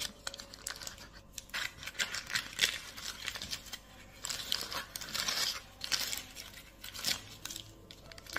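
Baking parchment paper crinkling and crackling irregularly as it is peeled open by hand.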